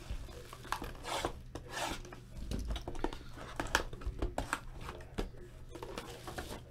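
A cardboard 2014 Panini Select football hobby box and its packs being handled and slid across a table: scattered rustles, scrapes and light knocks.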